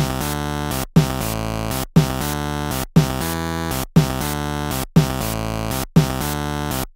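Synthesizer background music looping a short phrase about once a second, each repeat opening with a sharp attack and followed by a brief gap.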